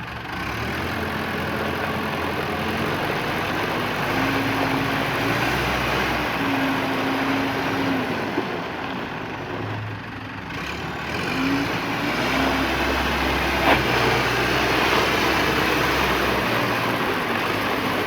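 The 4-cylinder diesel engine of a New Holland LB115 backhoe loader running. It gets louder about half a second in and dips briefly around ten seconds in. A steady whine comes and goes twice.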